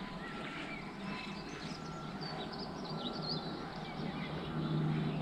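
Faint birdsong, a few short chirps, over quiet outdoor background noise, with a low steady hum that grows a little louder near the end.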